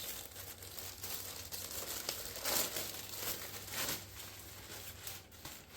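Packaging being torn open and handled, with crinkling and rustling in uneven swells.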